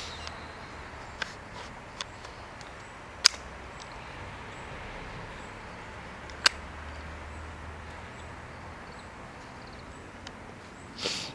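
Gas blowback airsoft pistol firing two sharp shots about three seconds apart. Fainter clicks come before them, and a longer, softer burst comes near the end, over steady outdoor background noise.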